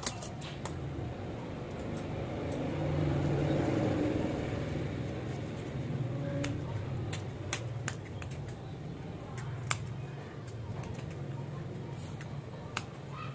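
Large tailor's scissors cutting through blouse fabric: irregular sharp clicks of the blades, over a steady low background hum.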